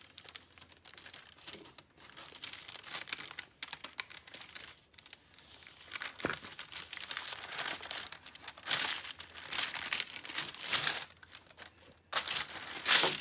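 Hands kneading and folding a lump of slime on a sheet of parchment paper, making crinkling and tearing-like noises in irregular bursts that get louder in the second half, with one sharp click about six seconds in.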